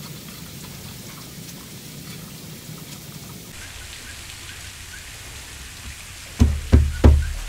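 Three heavy thumps about a third of a second apart near the end: a long wooden plank struck by hand to seat it on a glue-spread edge joint against the board below. A steady hiss runs underneath.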